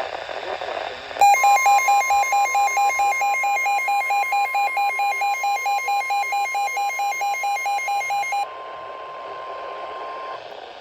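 NOAA Weather Radio going into alert for a severe thunderstorm warning. About a second in, the broadcast's steady warning alarm tone starts, and a receiver's own alarm beeps rapidly over it, about four beeps a second. The beeping stops about seven seconds later, and the steady tone cuts off about two seconds after that, leaving radio hiss.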